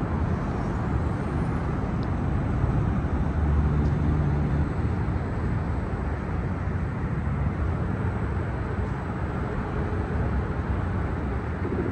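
Steady downtown street traffic noise, a continuous low rumble of passing vehicles.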